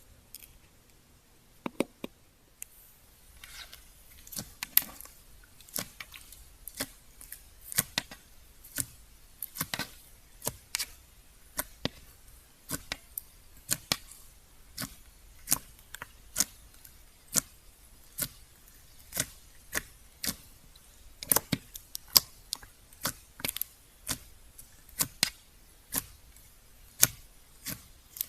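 Slime being worked by hand, giving sharp clicking pops roughly one or two a second, the sound of air pockets snapping as it is pressed and stretched.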